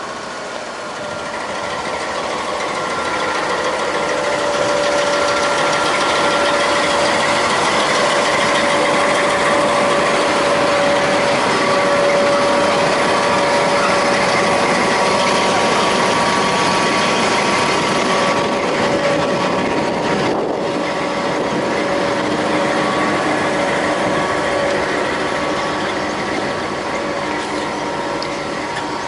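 Trenitalia D.445 diesel locomotive running light past at low speed. Its engine noise is loud and steady with whining tones that come and go, growing louder over the first few seconds and easing off somewhat in the last third.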